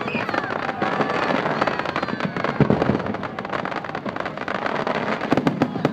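Fireworks display: a rapid, unbroken barrage of bangs and crackles from many shells bursting at once.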